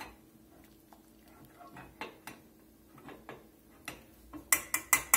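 Small metal whisk stirring sauce in a stainless steel saucepan, with light clicks and scrapes against the pan. Near the end come about five sharp metallic taps in quick succession, the loudest sounds here.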